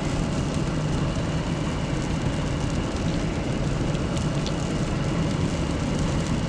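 Car driving slowly on a snow-covered road: steady engine hum and tyre noise on snow and slush.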